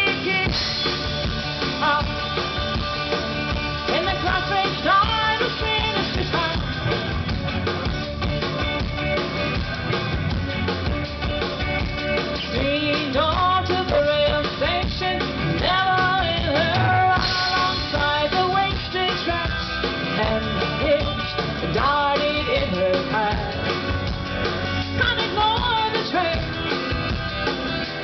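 Live rock band playing through a stage PA, heard from the crowd: drum kit, electric and acoustic guitars, bass and organ.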